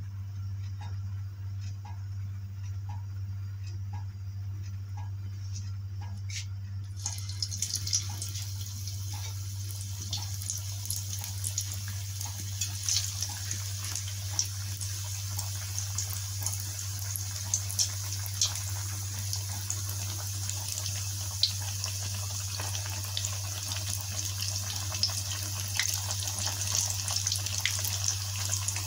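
Spiced bread-and-vegetable patties deep-frying in hot oil in a wok. The sizzle starts about seven seconds in as the first patty goes in, a steady hiss full of sharp crackles and pops that grows busier near the end as more patties are added, over a steady low hum.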